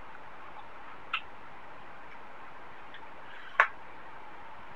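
Eating sounds: two sharp clicks, one about a second in and a louder one past halfway, over a steady hiss.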